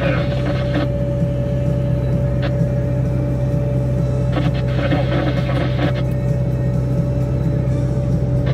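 Wille 665 loader's diesel engine running steadily while driving a Tokvam snow blower, heard from inside the cab, with a steady whine over the engine drone. A brief louder rush comes about halfway through.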